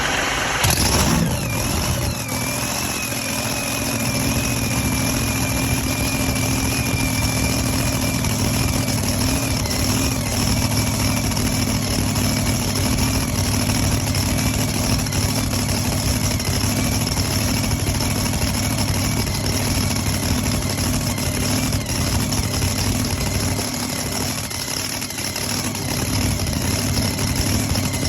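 Supercharged truck-pulling engine, just fired up, with a sharp loud burst about a second in, then settling into a steady idle. A high whine from the supercharger falls slightly in pitch as it settles and runs over the deep engine note.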